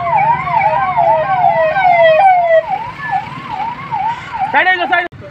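Fire engine's electronic siren sounding a fast up-and-down yelp, about three sweeps a second. It is loud at first and fainter from about halfway through.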